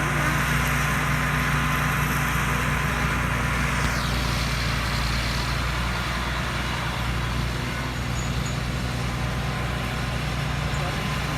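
A rice combine harvester built by Thai Seng Yont runs steadily while harvesting lodged rice: a constant engine hum under a broad machinery noise. A faint falling whine sounds about four seconds in.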